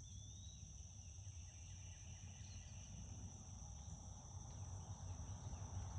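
Steady high-pitched chorus of insects, with a low rumble of outdoor background noise beneath it.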